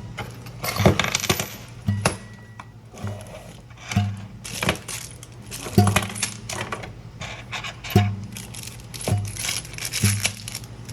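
Small metal lock hardware pieces clinking and jingling against each other as they are handled, over background music with a steady beat of about one pulse a second.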